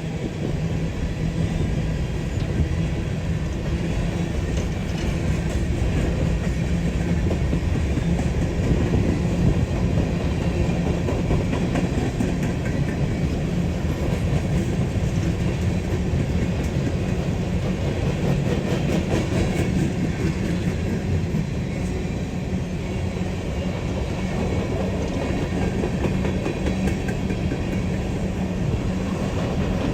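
Freight train rolling along the track, with steady rumbling wheel-on-rail noise and light clatter.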